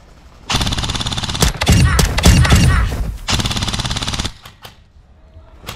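Airsoft rifle firing on full auto: a fast, even rattle of shots lasting about four seconds, loudest in the middle.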